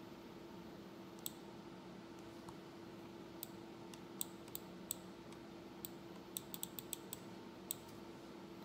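Computer mouse clicking: about a dozen sharp single clicks, with a quick run of five or six about two-thirds through, over a faint steady hum.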